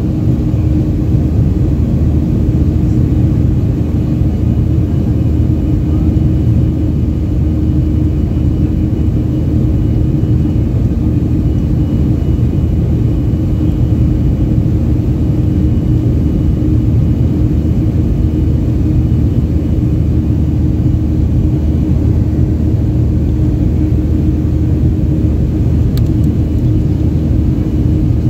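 Jet airliner's engines heard inside the cabin during the climb after takeoff: a loud, steady low rumble with a constant hum.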